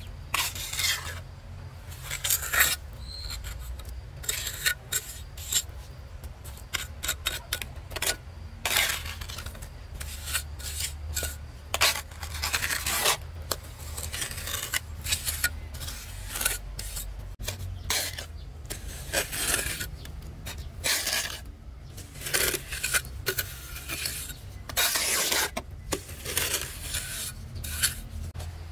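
A hand tool rasping and scraping in repeated strokes, irregular in pace, with a few longer drawn-out strokes among the short ones.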